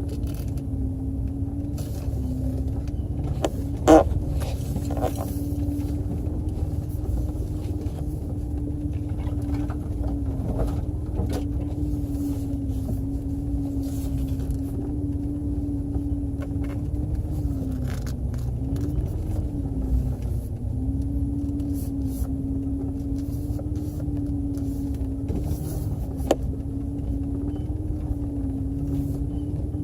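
Four-wheel-drive vehicle crawling along a rough trail: steady engine and drivetrain rumble with a steady hum that dips in pitch now and then, and a sharp knock about four seconds in.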